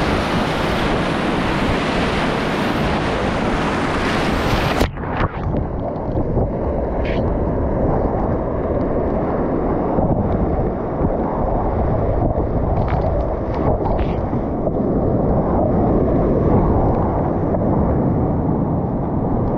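Whitewater rapid rushing loudly around a kayak running it, heard right at the boat with wind on the microphone. About five seconds in the bright hiss cuts off abruptly and the rushing goes on as a muffled low rumble.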